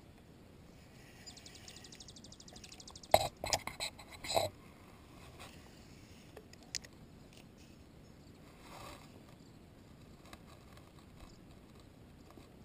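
Spinning fishing reel ticking rapidly for about two seconds. It is followed by a cluster of sharp knocks and clacks as the rod and tackle are handled, the loudest part.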